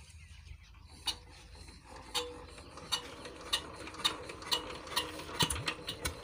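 Single-cylinder diesel pump engine being hand-cranked to start. It gives a sharp mechanical click with each turn, speeding up from about one a second to about two a second as the crank is spun faster.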